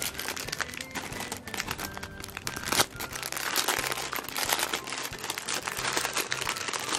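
Plastic wrapping crinkling in a dense, continuous run of small crackles.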